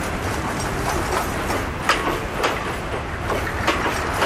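Passenger coaches rolling slowly past on the track, with a steady wheel rumble and a few sharp clacks of wheels over rail joints, about two seconds in and again near the end.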